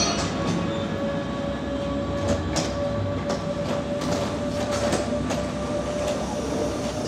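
n-Wagen (Silberling) passenger coaches rolling slowly along the platform: a steady squeal runs through the rumble, with scattered clicks and knocks from the wheels and running gear.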